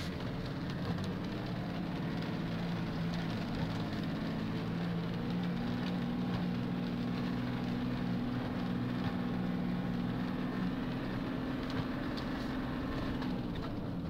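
An off-road 4x4's engine running steadily under light load, a low drone heard from inside the cab as the vehicle crawls over rough ground. Its note rises a little about five seconds in, holds, and eases back near the end.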